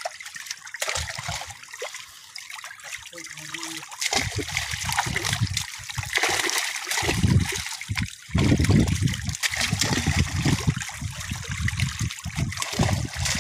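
Water splashing and churning as a dense crowd of grouper (lapu-lapu) thrashes at the surface of a net cage, with a hand net scooping through them; the splashing grows heavier about four seconds in.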